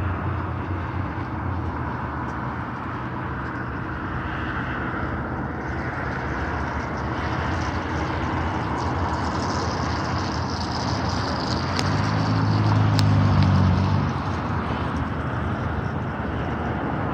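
Road traffic on a multi-lane street: a steady engine hum under the rush of passing cars, with one vehicle passing louder about three quarters of the way through.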